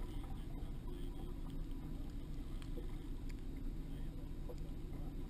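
Fishing boat under way at trolling speed: a steady low rumble of motor and water against the hull, with a few light ticks and knocks.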